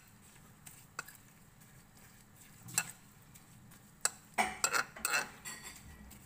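Metal utensil stirring thick okoy batter of small shrimp in a glass bowl: scattered clinks of metal on the bowl, with a busier run of scraping and clinking about four seconds in.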